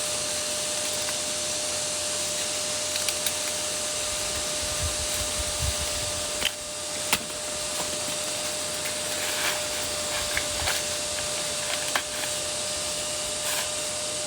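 A steady, machine-like whirring noise with a constant hum, broken by a few light clicks and knocks.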